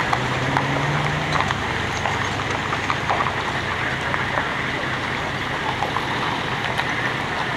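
A slowly moving tow vehicle and trailer rolling along, a steady rumbling noise sprinkled with many small clicks and crackles, and a low hum for the first second or so.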